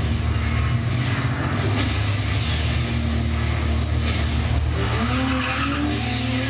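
Car-racing audio with engines and tyre squeal, played loud through a Sony HT-CT260H soundbar and its wireless subwoofer, with a heavy steady bass underneath. About five seconds in, an engine-like pitch rises and holds.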